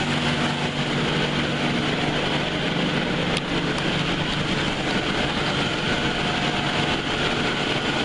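Chiller plant with two reciprocating piston compressors, one 30-ton and one 20-ton, running together: a steady machinery drone with a low hum.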